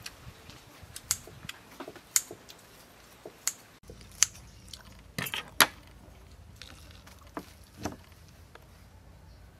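Kitchen scissors cutting through crispy breadcrumb-fried beef on a plate: scattered sharp snips and crunches, loudest in a quick cluster a little past five seconds in. A fork clinks on the plate near the end.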